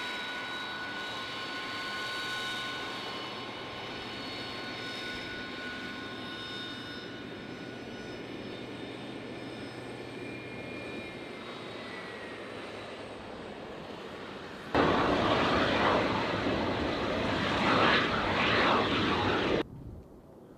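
Turbofan engines of a taxiing E-4B (a Boeing 747-200 airframe) run with a steady high whine over a rushing hiss, and the whine fades away as the aircraft moves off. About fifteen seconds in, a much louder rushing jet roar starts abruptly, runs for about five seconds and cuts off suddenly.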